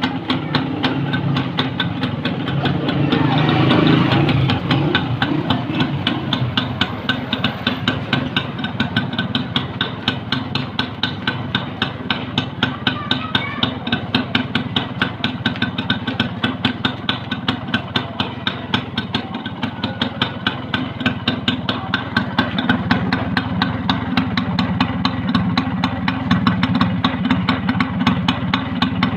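Yamaha YB100's single-cylinder two-stroke engine running at idle, with a quick blip of the throttle about four seconds in before it settles back to a steady idle.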